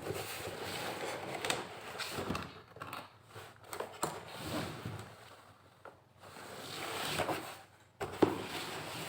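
Laptop box and its packaging being handled and opened: rustling with scattered light knocks and clicks, a slow swell of rustling near the end and a sharp click just after it.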